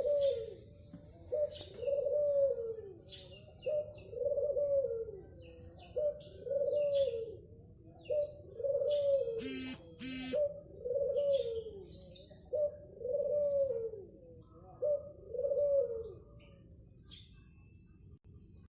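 Zebra dove (perkutut) cooing: the same phrase repeated about eight times, each a short note followed by a longer coo that rises and falls in pitch, then it stops a couple of seconds before the end. Two short high chirps come in the middle.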